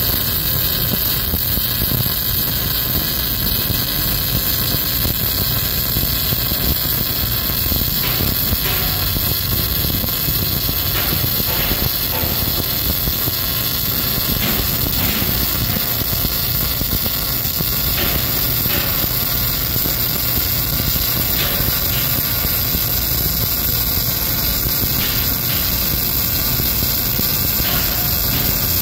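Wire-feed welding arc burning without a break, a steady crackling hiss, as one pass of a multi-layer weld is laid.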